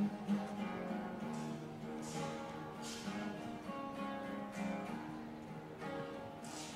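Music played on a strummed acoustic guitar: repeated strummed chords over held notes.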